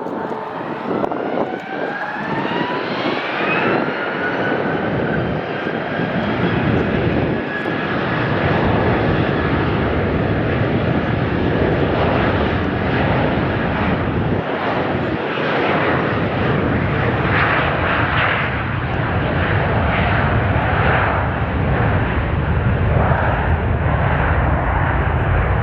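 Bombardier Global 7500 business jet's twin GE Passport turbofans spooling up for takeoff: a whine rising in pitch over the first few seconds, then a steady jet roar that slowly grows louder.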